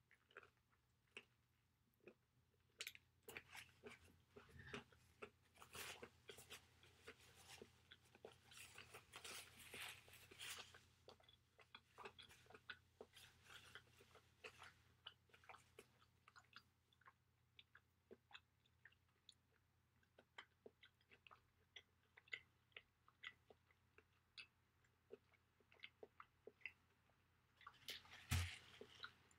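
Faint, close chewing and crunching of a crispy fried chicken sandwich, a run of small crisp crunches that are busiest in the first ten seconds or so and thin out later. A louder bump comes near the end.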